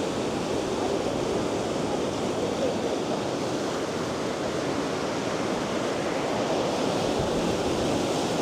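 River rapids in full flood after rain: a steady, loud rush of fast-flowing water.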